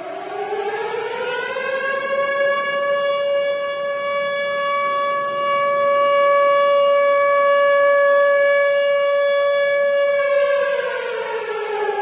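Tornado warning siren sounding one slow cycle: its pitch rises over about two seconds, holds one steady note for about eight seconds, then begins to fall near the end.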